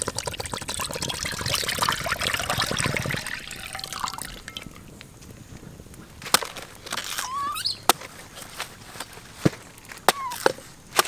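Coconut water pouring from a cut green coconut into a hot wok over a wood fire, a steady pour lasting about four seconds. After the pour the sound is quieter, with a few sharp clicks and short bird chirps.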